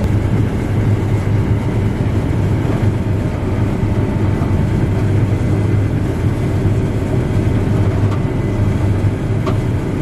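Case IH combine running steadily while harvesting wheat, heard from inside the cab: an even machine drone with a strong low hum.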